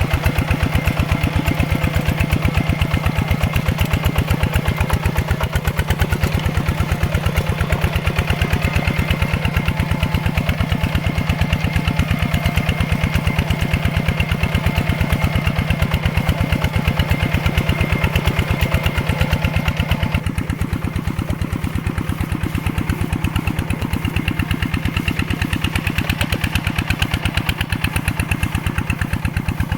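Mini tractor's single-cylinder diesel engine running steadily under load, a fast, even chugging of firing pulses. About two-thirds of the way through the sound turns duller and a little quieter.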